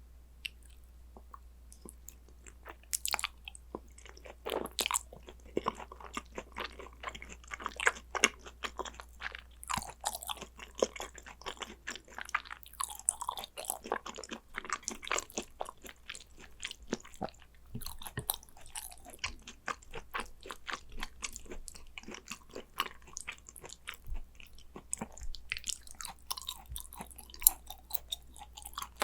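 Close-miked chewing and wet mouth sounds of someone eating spicy gochujang-dressed raw beef tartare (yukhoe), with many small irregular clicks and some crunching bites.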